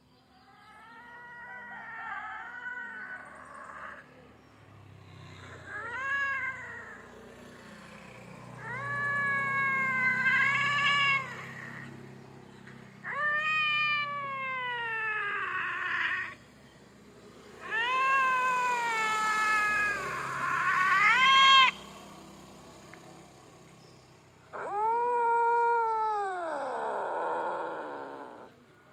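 Domestic cat caterwauling: a string of about six long, drawn-out yowls, each rising and then falling in pitch, several trailing off into a rough, breathy end. It is the threatening territorial yowl of an angry cat.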